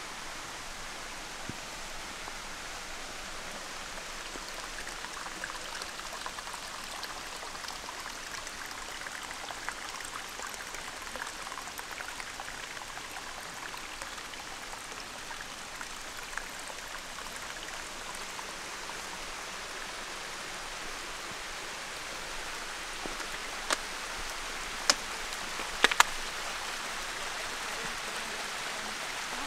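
Thin runoff of water trickling and splashing over a sloping rock slab, a steady hiss. A few sharp clicks and knocks come about three-quarters of the way through.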